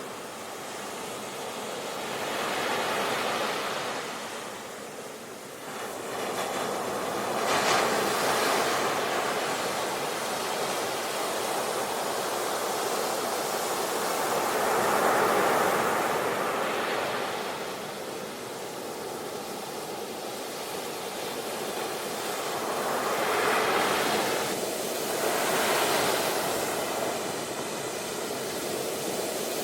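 Sea waves breaking and washing on a shore, the surf swelling and easing in several slow surges.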